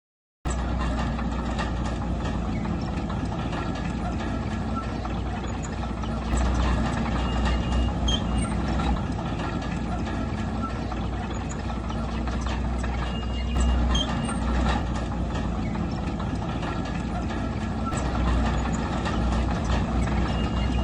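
Heavy diesel engine of an earth-moving machine running steadily with a deep rumble, getting louder about six seconds in, with a few short high squeaks.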